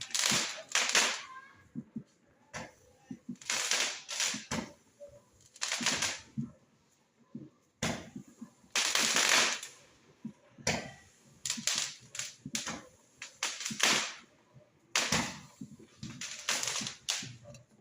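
Fireworks exploding: irregular sharp bangs and crackles, sometimes several in quick succession, with short quiet gaps between volleys.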